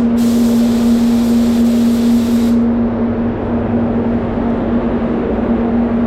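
Paint spray booth running with a steady hum, under a loud hiss of compressed air from a Satajet X5500 CC spray gun that cuts off suddenly about two and a half seconds in.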